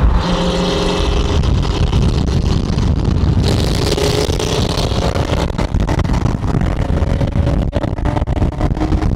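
Car engine and road noise heard from inside a moving car at road speed: a steady low rumble with a fluttering rush, and the engine note climbing slowly.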